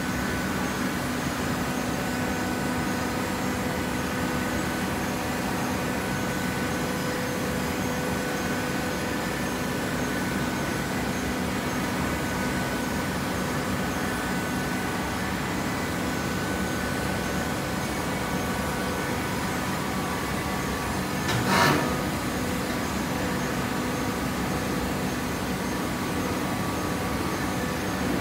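Horizontal hydraulic baler running steadily while baling fibre, a hum with a steady whine from its motor and hydraulic pump. One sharp knock about three-quarters of the way through.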